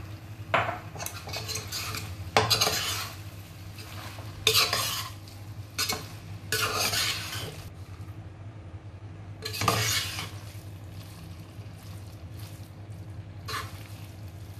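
A spoon stirring cooked jackfruit sabzi in a pressure pan to mix in chopped coriander: irregular scrapes and clinks of the spoon against the pan, several of them loud.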